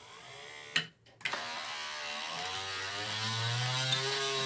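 Car power-window lifter motor driving a mini mill's lead screw through a dog clutch, whining as it runs. About a second in it stops with a click, then starts again louder, its pitch dipping and rising as the speed controller is turned before it settles.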